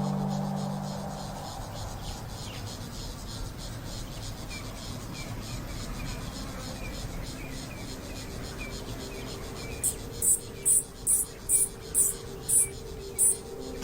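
Outdoor ambience with a faint, fast high ticking, then eight loud, short, very high-pitched chirps about half a second apart near the end. A ringing musical tone fades out in the first second or so.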